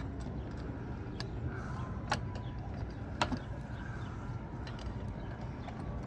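Camper door lock hardware being handled and worked by hand: scattered light clicks and taps of metal parts, with two sharper clicks about two and three seconds in, over a steady low rumble.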